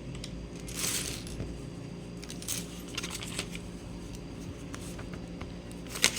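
Small plastic LEGO pieces clicking and rattling as they are picked up and handled, a few scattered clicks over a low steady hum.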